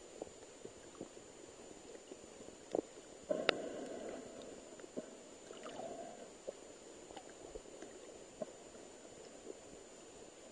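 Muffled water gurgling and sloshing around a camera held just under the surface, with scattered small clicks and a louder splashy swell about three seconds in. A faint steady high whine runs underneath.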